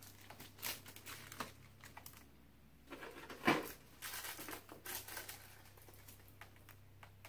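Plastic packaging bags crinkling and rustling as they are handled and opened, with irregular small ticks and taps. One louder rustle comes about three and a half seconds in.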